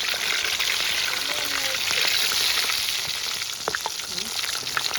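Fish frying in hot oil: a steady, loud sizzle with scattered crackles and pops.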